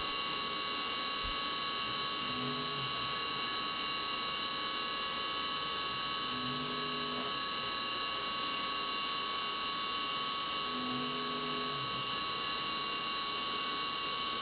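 CNC mill spindle with a 3/16 inch end mill cutting lightening recesses into a gas block under flood coolant, a steady high whine with coolant spray. Four times, a low hum rises and falls as the stepper-driven axes move.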